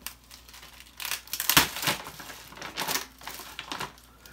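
Thick plastic wrapping on a rolled memory foam mattress crinkling and crackling as hands pull and tug at it, trying to tear it open by hand. The crackles come irregularly, loudest about a second and a half in and again near three seconds.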